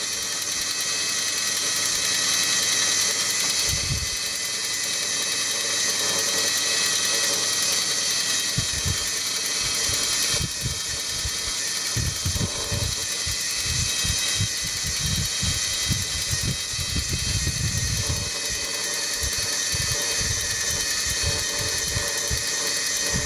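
Fr. Sauter clockwork time switch winding its spring up: a steady mechanical whirr from its gear train, with some irregular low knocks from about a third of the way in.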